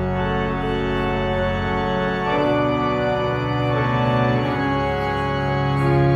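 Organ playing slow, held chords that change every second or two.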